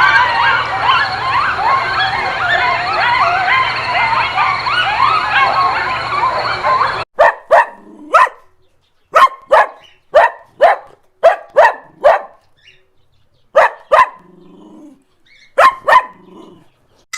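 A dense chorus of many high, overlapping chirping calls that cuts off suddenly about seven seconds in. It is followed by a dog barking about a dozen times, mostly in quick pairs of short barks with pauses between them.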